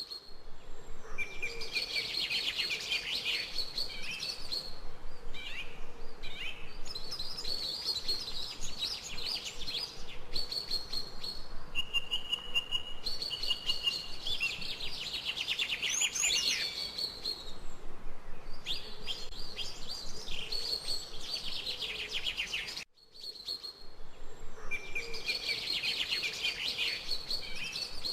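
Several birds chirping and singing in repeated trills and phrases. The sound drops out for a moment near the end, then the same birdsong resumes.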